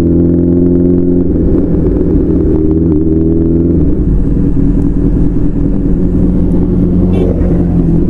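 Superbike engine running under way on the road, loud and steady, its note climbing slightly for the first few seconds. About four seconds in, the note changes and carries on at a lower, less clear pitch.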